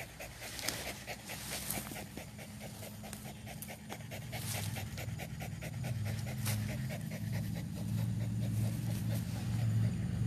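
A dog pants quickly and rhythmically with its mouth open, cooling itself down after running. A low steady hum grows louder underneath from about halfway.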